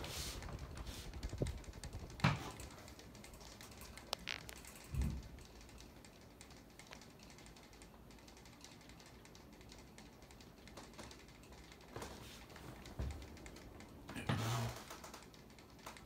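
NuTone Verandah II spinner-motor ceiling fan running on high, heard only as a faint steady whoosh, with a few scattered light clicks and soft knocks.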